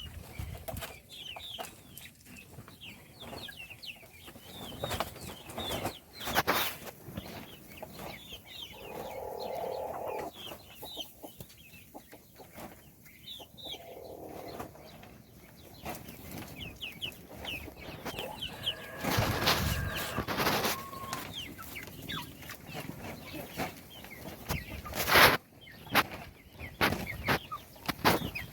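Baby chicks peeping: a steady stream of short, high chirps, with a few lower calls, a rustling stretch about two-thirds of the way in, and a couple of sharp knocks.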